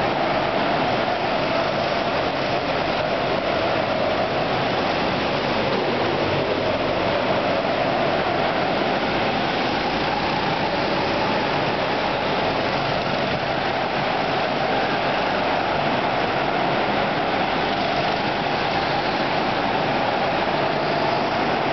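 Several hire go-karts running around an indoor track, their engines blended into one steady drone that drifts slightly in pitch.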